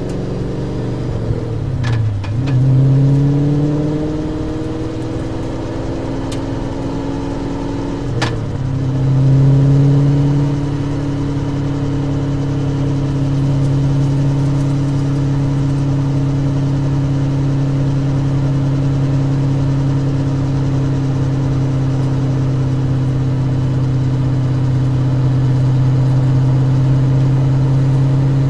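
Track car's engine running hard at speed, heard from on board. Its pitch dips sharply and picks back up twice, about two and eight seconds in, each time with a short click, then holds a steady note for the rest.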